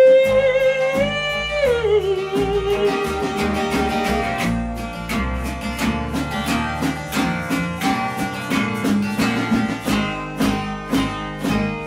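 Acoustic guitar strumming steady chords in the closing bars of a live acoustic song. Over the first few seconds a long held note slides down in pitch and fades out, leaving the strummed guitar.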